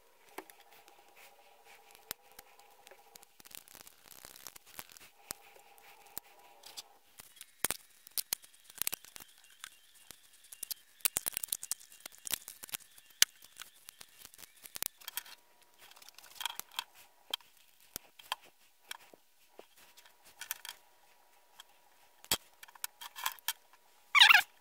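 Scattered small clicks, taps and rustles of metal press dies and leather being handled at a workbench, with a louder clatter of handling near the end. A faint steady hum sounds during the first seven seconds, with a break in the middle.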